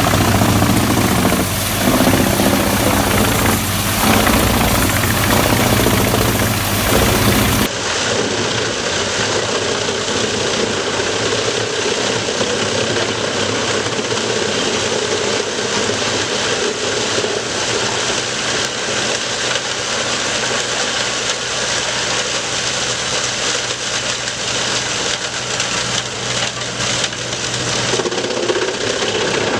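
Wood chipper machinery running steadily. First comes an engine with a strong low hum; about 8 seconds in it changes abruptly to a different machine with a coarser, noisier running sound.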